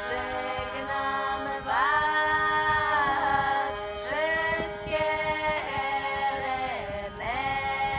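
Background music: unaccompanied singing in long held notes that slide from one pitch to the next, over a steady drone.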